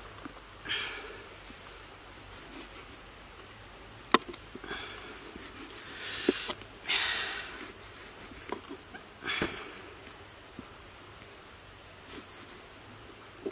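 Large knife cutting limes over a stone mortar: scattered sharp taps and short scraping noises as the blade goes through and the pieces drop into the chilli paste, the loudest a little past the middle. Beneath it, a steady high drone of insects.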